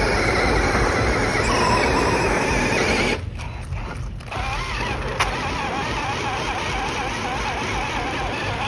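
Traxxas X-Maxx 8S RC monster truck, geared 18/54, with its brushless electric motor and gears whining under heavy load as it strains to tow a full-size pickup. The sound is loud and dense at first, drops suddenly about three seconds in, then goes on as a wavering whine with one sharp click a couple of seconds later.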